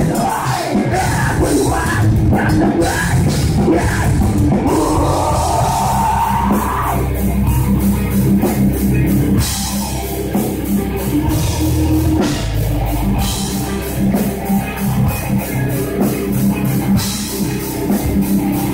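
Live heavy metal band playing loudly: distorted electric guitars, bass guitar and a Pearl drum kit.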